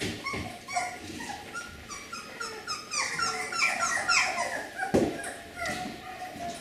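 Beagle puppies whimpering in a string of short, high, falling squeaks, coming quickest between about three and four and a half seconds in. A single thump about five seconds in.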